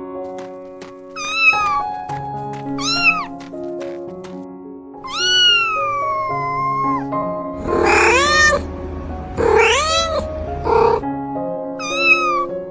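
A cat meowing again and again over soft piano music: short rising-then-falling meows, one long drawn-out meow in the middle, and a few rougher, more strained cries shortly after.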